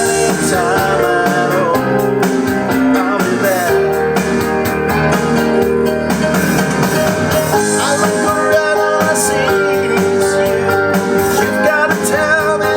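Roland E-500 arranger keyboard playing back a homemade MIDI backing track of a pop-rock song, with piano played along over it. A melody line with bending pitch runs over the full accompaniment.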